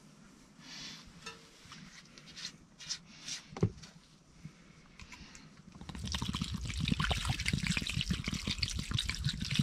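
Water being poured from a container into a cast iron Dutch oven. A few faint clicks and rustles come first, then a steady, splashing pour starts about six seconds in and is the loudest part.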